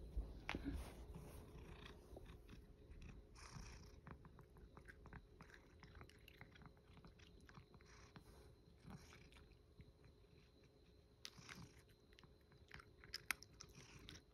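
A cat eating dry food out of a hand: faint, quick chewing and crunching clicks, a few sharper ones near the end.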